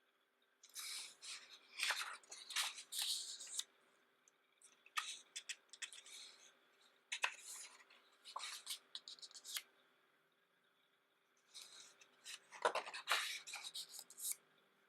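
Pages of a large, thick photobook being turned and handled: three flurries of crisp paper rustles and flicks, starting about a second in, around five seconds in, and near the end, with quiet between them.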